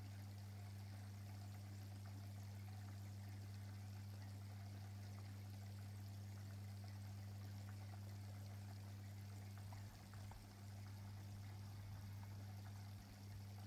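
Aquarium pump running: a steady low hum with faint trickling water from the tank.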